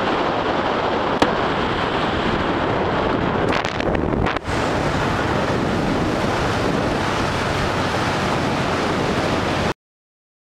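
Wind rushing over the microphone and road noise while riding outside on a moving vehicle, a steady loud rush with a brief break about four seconds in. It cuts off abruptly to silence near the end.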